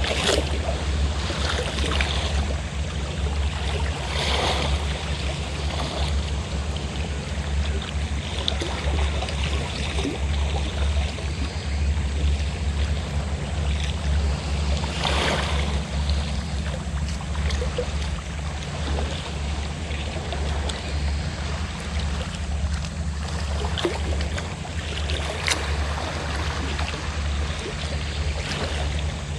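A fishing boat's engine running steadily with a low throb, over the wash of sea waves. A few louder wave splashes come through.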